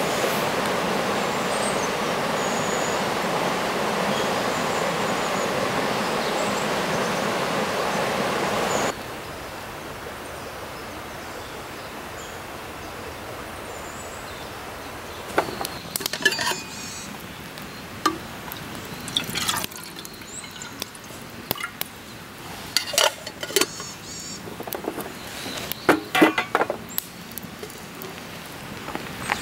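A shallow river running over stones, a steady rush of water. About nine seconds in it cuts abruptly to a quieter stretch of water, with scattered short sharp sounds through the second half.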